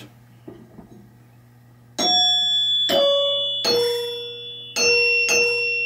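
The chime bars of a 1976 Bally pinball chime unit are struck about five times in quick succession, starting about two seconds in. They ring out at three different pitches, and the last strikes carry a nasty rattle.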